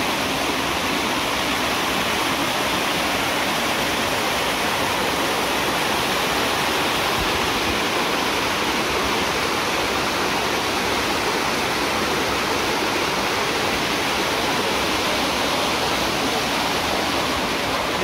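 Small waterfall cascading over rocks in a forest stream: a steady rushing of water.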